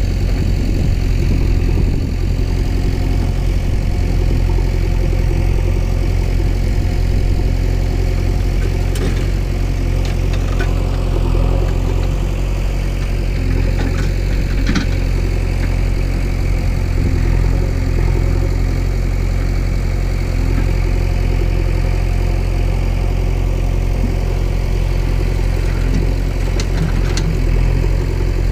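Steady engine idling rumble, a vehicle-engine sound laid over the toy loader play, with a few faint clicks along the way.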